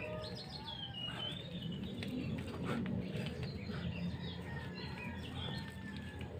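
Birds chirping and calling in short whistled notes and glides, over a low steady rumble, with a few faint clicks.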